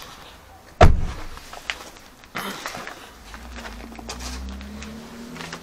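Handling noise from taking apart a car's interior trim: one sharp knock about a second in, then a few lighter clicks. A low steady hum comes in during the second half.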